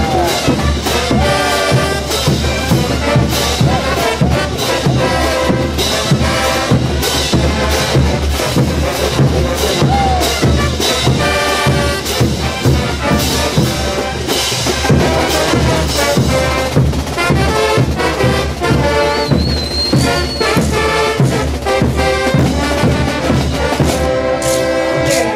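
Bolivian brass band playing morenada: trumpets and trombones in a full ensemble over a steady drum beat.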